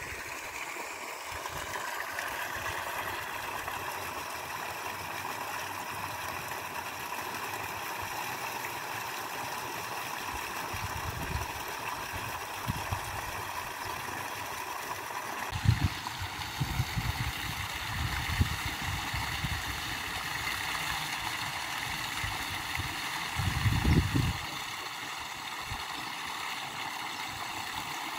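Water from two wall-mounted spouts splashing steadily into a swimming pool, with a few low thumps around the middle and near the end.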